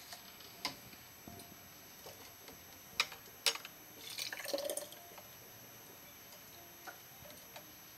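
Thick chili sauce scooped with a cup from a stockpot and poured through a metal canning funnel into a glass jar. A few light clicks of the cup against the pot rim and funnel, and a soft pour about four seconds in.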